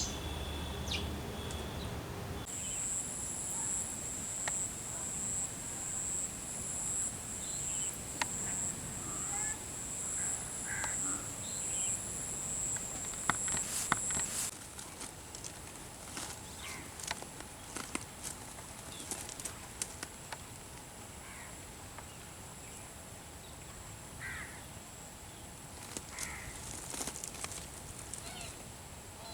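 Outdoor nature ambience: scattered bird calls, crow-like caws among them, over a steady high-pitched pulsing drone that stops about halfway through.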